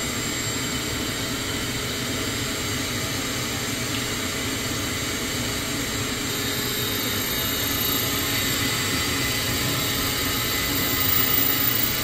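minuteKEY automated key-duplicating kiosk running while it cuts a key: a steady mechanical whir with high whining tones, a little louder near the end.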